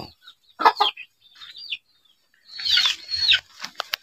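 Short, falling chirps of small birds, several in a row, mixed with the rustling of leafy stalks as goats nose and tug at them.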